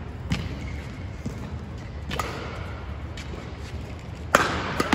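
Badminton rally: rackets strike the shuttlecock three times about two seconds apart, each hit echoing briefly in the hall. The last and loudest is an overhead smash near the end.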